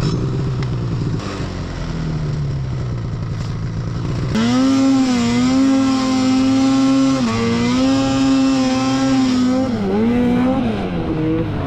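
Two-stroke snowmobile engine under way, at lower revs for the first four seconds, then the throttle opens and it climbs suddenly to a steady high-revving pitch, easing off briefly a few times near the end.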